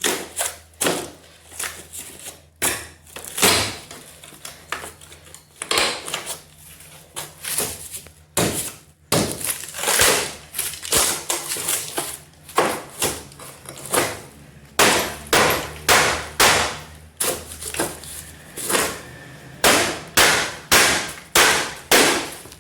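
Repeated sharp hammer blows on masonry, about two a second in irregular runs with short pauses between them.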